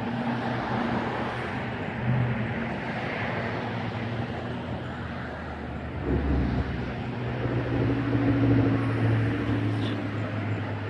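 Motor vehicle engine and traffic noise. A vehicle's engine grows louder from about six seconds in, peaks a few seconds later, then fades.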